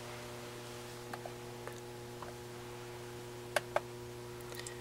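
Steady low electrical hum with a few faint ticks. About three and a half seconds in come two sharper clicks in quick succession, from a laptop's touchpad button.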